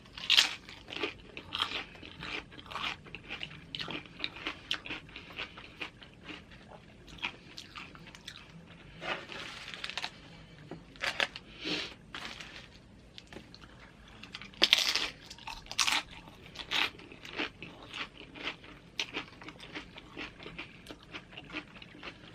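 Close-up crunching and chewing of tortilla-chip nachos: irregular crisp crunches, a few louder bites among them.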